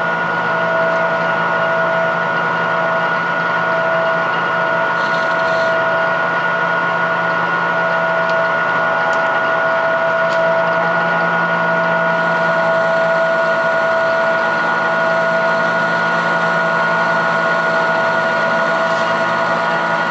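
Goodway GW1660 gap-bed metal lathe running steadily at about 680 RPM: a constant gear whine and motor hum that holds one pitch throughout, with a few faint light ticks.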